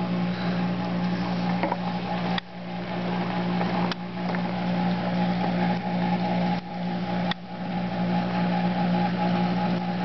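A steady mechanical hum from a running motor or engine, low-pitched with overtones, dipping briefly a few times.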